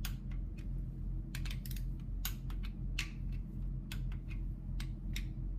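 Torque wrench ratchet clicking in short, irregular runs as the water-neck bolts are turned down to 13 ft-lb.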